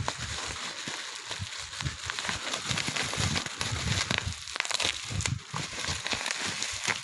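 Close, continuous crinkling and rustling with many small crackles and soft low knocks, like something being handled right at the microphone.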